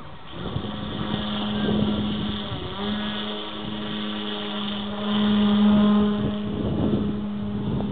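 Electric motor and propeller of a 7 lb 10 oz radio-controlled model plane, running on over 30 volts, giving a steady droning whine in flight. It dips briefly about two and a half seconds in and is loudest around five to six seconds in.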